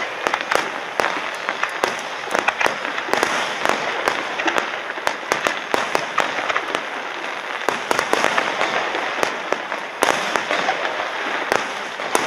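Aerial fireworks shells bursting in a continuous barrage: many sharp bangs and crackles one after another without a pause, with one louder bang about ten seconds in.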